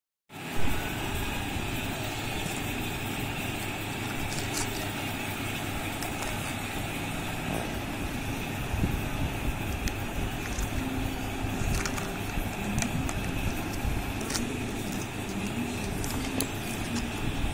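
Steady background noise with a few faint clicks and crinkles from plastic-and-foil chocolate-egg packaging being peeled open and handled.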